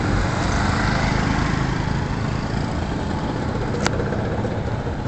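Small vehicle engine running steadily while driving, with road and wind noise. A single brief click sounds near the end.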